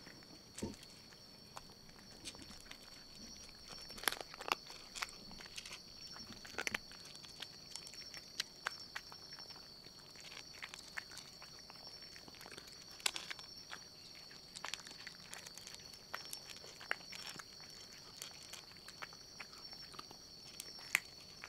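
Cats chewing chicken treats: scattered small clicks and crunches at an irregular pace, with a steady high-pitched whine behind them.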